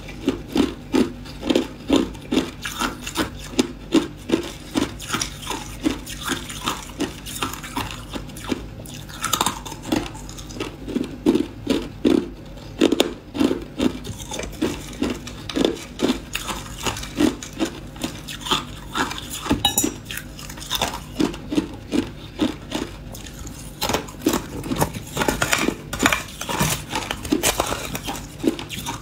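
Hard clear ice being crunched between the teeth in a steady chewing rhythm of about two crunches a second.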